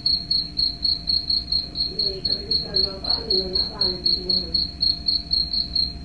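A recording of crickets chirping, played through a smartphone speaker: short high-pitched chirps repeating evenly, about four a second.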